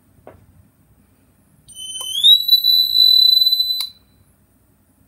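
Electronic fire-alarm sounder of a Teletek MAG2 conventional fire alarm panel setup, heard as the panel is reset out of alarm. A shrill tone slides up in pitch, holds steady for about two seconds and then cuts off abruptly. A soft click comes shortly before it.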